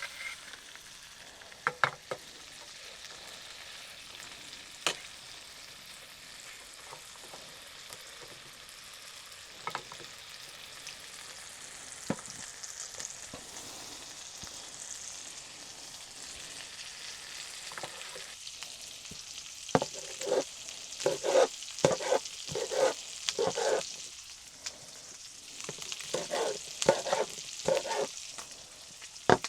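Food sizzling in a frying pan. A utensil stirs and scrapes against the pan in two runs of quick strokes, the first starting about two-thirds of the way through.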